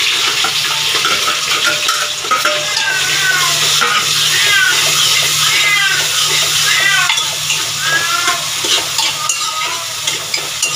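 Chopped onion and green chillies sizzling as they fry in hot oil in an aluminium pot, stirred with a metal spoon. A pet animal calls over and over in the middle stretch.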